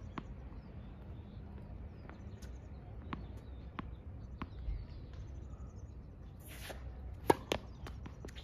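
A tennis ball bounced several times on a hard court, a single sharp tap about every second. About seven seconds in comes one loud racket strike on the ball with a second pop just after it.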